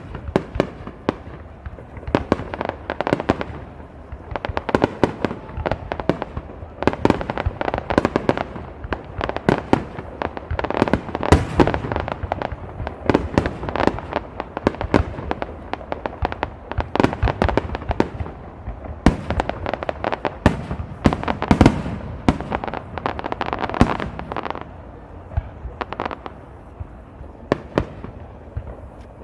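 Fireworks display: a dense barrage of bursts and booms going off in quick succession, easing off a little near the end.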